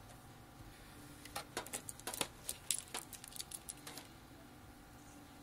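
Quick light metallic clicks and scrapes of a D-sub (VGA) cable plug being handled against the back panel of a desktop PC, lasting about three seconds from a second in.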